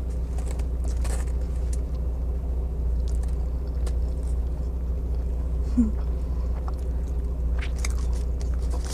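A person chewing a mouthful of burger, with faint wet mouth clicks now and then, over the steady low hum of a car's idling engine.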